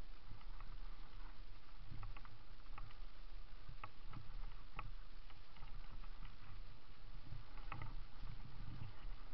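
Mountain bike rolling fast down a dirt forest trail: a steady, uneven rumble of tyres and wind on the microphone, with scattered clicks and rattles from the bike over the bumps.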